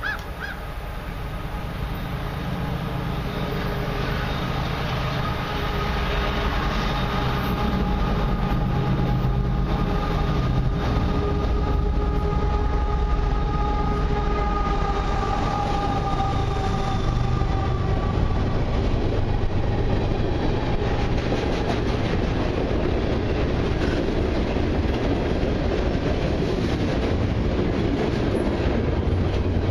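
Freight train led by two CN GE diesel-electric locomotives approaching and passing close by: the locomotives' engine sound builds over the first several seconds, with a steady whine that dips in pitch as they go by. Then the freight wagons roll past with clattering wheel noise.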